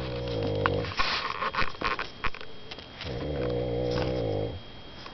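Snoring: a long, low snore ends about a second in, followed by a breathy hiss, and a second long snore of about a second and a half starts about three seconds in.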